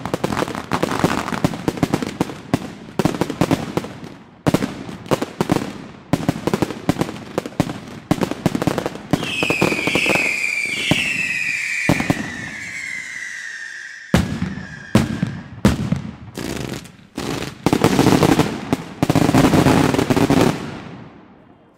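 Daytime fireworks barrage with salutes: sharp bangs and crackling fire in fast succession. From about nine seconds in, several whistles start and slide down in pitch together for some five seconds. A last dense run of bangs follows, then the barrage stops just before the end.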